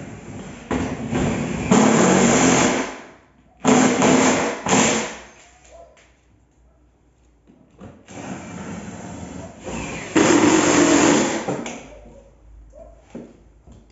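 Cordless drill running in four bursts of one to two and a half seconds each, with short pauses between.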